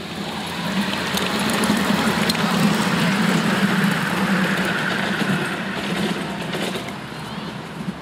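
A passenger-carrying miniature railway train running past at close range: the locomotive gives a steady hum, with scattered clicks from the train on the track. The sound grows louder to a peak a couple of seconds in and fades as the train moves away.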